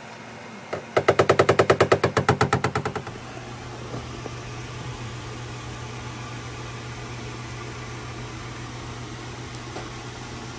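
A rapid, even run of light ringing taps, about seven a second for about two seconds, from a paintless-dent-repair tap-down tool struck against a car body panel to knock down high spots. After the taps stop, a steady low hum remains.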